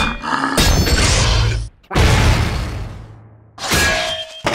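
Cartoon sound effects: two loud crashing bursts of noise, the second dying away over about a second and a half, then a short ringing sting and a sharp hit near the end, as the beetle's shell comes apart.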